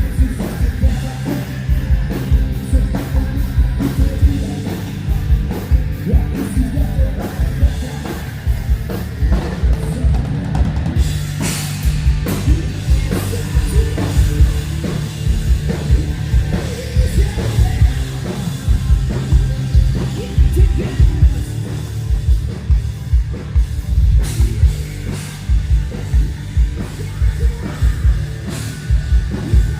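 Rock band playing heavy rock at a sound check, driven by a drum kit with a fast, steady kick drum under thick bass and guitars.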